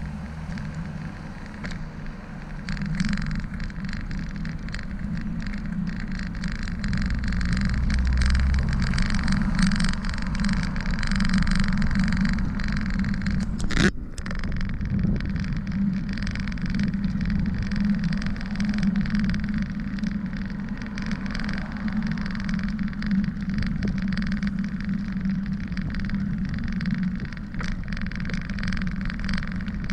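Bicycle riding noise: steady tyre and wind noise with car traffic going by, and one sharp click about fourteen seconds in.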